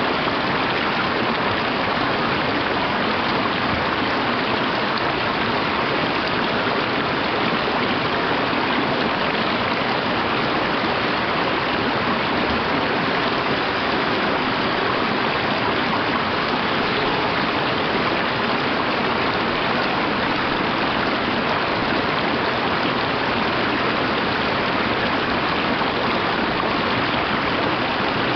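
A mountain stream running over rocks, a steady rush and splash of water that does not change.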